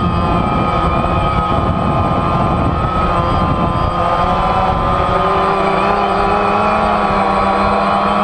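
DJI Phantom quadcopter's motors and propellers whirring in flight, heard from the drone's own camera: a steady whine whose pitch wavers slightly as the motors change speed, over a low rumble of air on the microphone.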